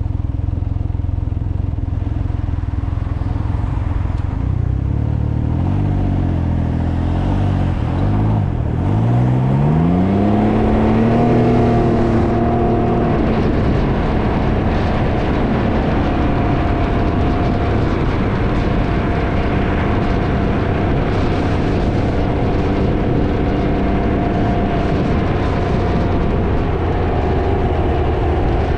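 Can-Am Ryker engine running on the move, under heavy wind noise buffeting the microphone. About eight seconds in, the engine note drops low, then climbs steadily as the machine accelerates again, and settles into a steady cruise.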